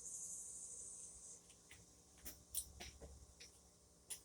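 Faint handling noise from a knife being picked up and shown: a short high hiss lasting about a second, then a few light clicks and taps.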